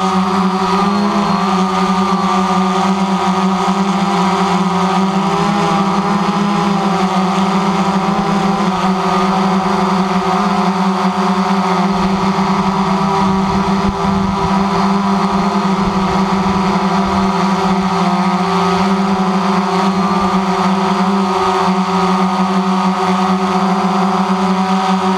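DJI Phantom quadcopter's motors and propellers spinning, a loud steady buzzing whine heard from right beneath the rotors, with several close tones that waver slightly against each other. Some low rumble comes in for a few seconds around the middle.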